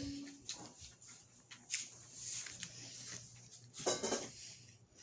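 Chewing a bite of Honeycrisp apple: irregular crisp crunches, the loudest at the start and about four seconds in.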